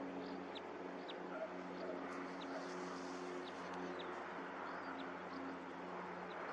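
Small bird giving short, high, falling chirps every few tenths of a second over steady outdoor background noise. Under it runs a low, even hum that breaks off now and then.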